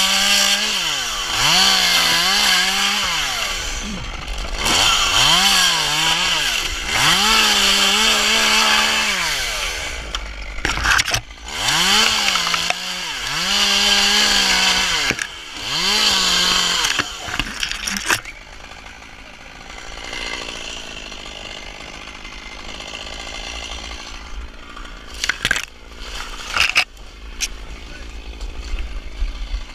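Small top-handle chainsaw revving again and again as it cuts into dead palm fronds, its pitch dipping and rising with each cut. About eighteen seconds in the saw falls quiet. Dry fronds then rustle, with a few sharp cracks near the end.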